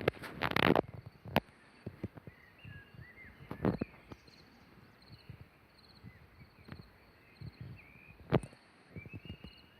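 Footsteps on a woodland trail, a quick run of steps at the start and then single, spaced footfalls, with soft bird chirps and a faint, evenly repeated high chirping behind them.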